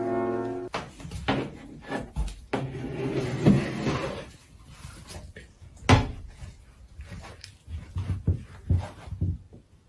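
Scattered knocks and thumps, like things being bumped or set down, with the loudest about six seconds in.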